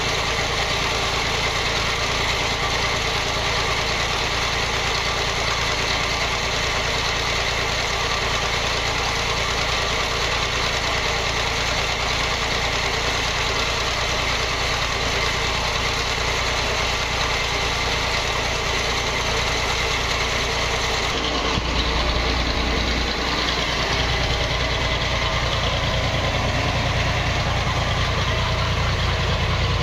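Small stationary diesel engine running steadily under load, belt-driving a seed-oil expeller. Its low hum grows heavier about two-thirds of the way through.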